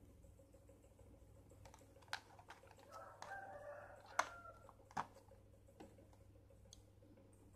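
Light clicks and taps of a plastic packaging tray and stationery being handled. The sharpest click comes about four seconds in, as a spiral notepad is pressed into its slot in the tray. A faint rooster crow sounds in the background for about a second, starting about three seconds in.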